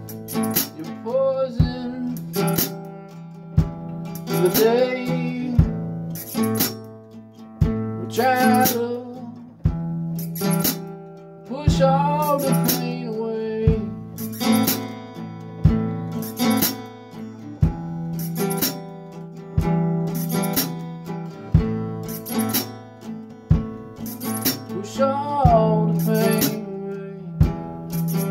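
Acoustic guitar strummed in a steady rhythm, about one strum a second, with a man singing drawn-out, wavering phrases over it every few seconds.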